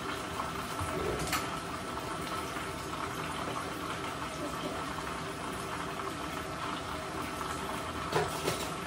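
Chicken drumsticks frying in hot corn oil: a steady sizzle with a few sharp pops.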